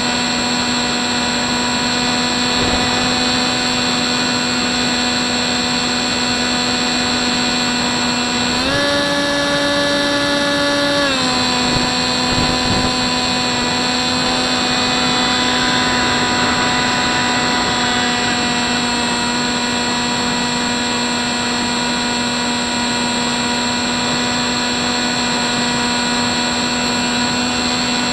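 Hubsan Spyhawk's electric motor and propeller whining steadily in flight, picked up by the Mobius camera mounted on the plane. About a third of the way in, the pitch steps up for about two seconds as the throttle is opened, then drops back.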